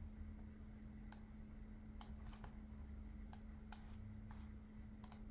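Faint scattered clicks of a computer mouse and keyboard, about seven over five seconds, some in quick pairs, over a low steady hum.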